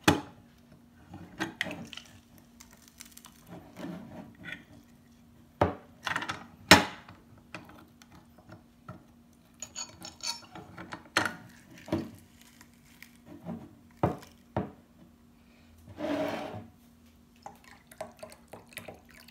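Metal hand-lever juicer press being worked on pineapple and ginger: scattered clacks and knocks of the lever and metal cup, the loudest about six to seven seconds in, with a brief scraping near the end.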